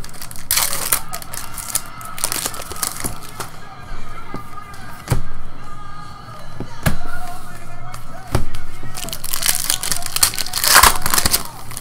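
Foil trading-card pack wrappers crinkling and tearing open, with sharp clicks of stiff chrome cards being handled, the loudest tearing near the end, over faint background music.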